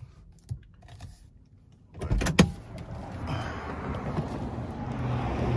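A sharp click about two seconds in, then outside road noise swelling steadily as a car approaches.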